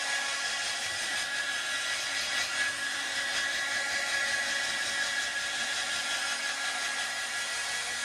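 Hair dryer running steadily, a high motor whine over the rush of air, blowing on a puppy's fur.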